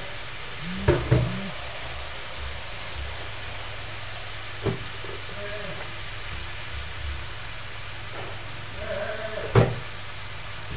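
Chicken sizzling steadily as it stir-fries in a steel wok, with a few sharp clacks of a metal spoon against the pan: two about a second in, one near the middle and the loudest near the end.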